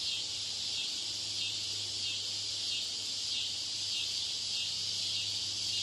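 Steady, high insect-like hiss with a low hum beneath it: the ambient background noise laid under a noise-version listening-test recording.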